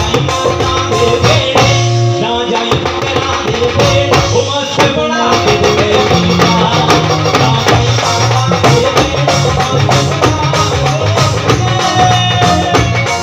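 Live band music played loud through a PA system: a man singing into a microphone over electric guitar, a stepping bass line and drums.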